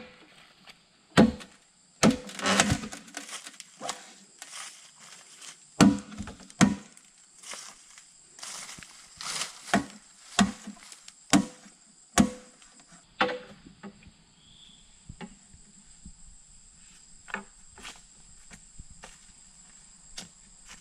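Machete chopping into a thick green bamboo pole: sharp, irregular strikes, some in quick pairs, for about the first thirteen seconds, then lighter taps and footsteps. Insects drone steadily in the background.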